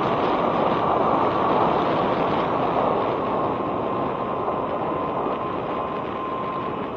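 Wind rushing over a helmet-mounted action camera's microphone while riding an electric scooter. A faint steady high whine sits under the rush and drops slightly in pitch in the second half.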